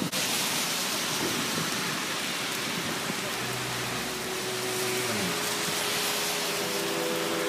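Heavy rain falling steadily, an even hiss of rain onto the ground, puddles and leaves, with a brief low hum in the middle.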